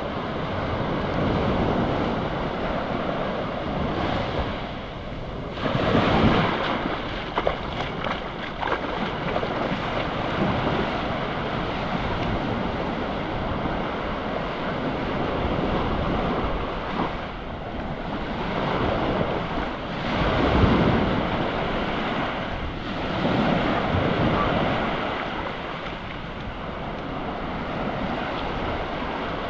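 Ocean waves breaking and washing up the beach, swelling in several surges with the loudest about six seconds in and again around twenty seconds, with wind buffeting the microphone.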